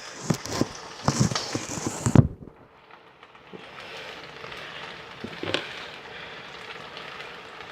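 Hamburger Helper beef pasta sizzling and crackling in a frying pan. A few loud knocks and clatters come in the first two seconds, then the sound settles to a steady crackle with one sharp click about halfway through.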